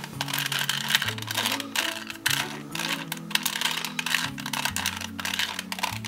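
Quick plastic clicking and clacking of a 2x2x2 pocket cube as its layers are turned by hand over and over, running through the R' D' R D algorithm, with low background music underneath.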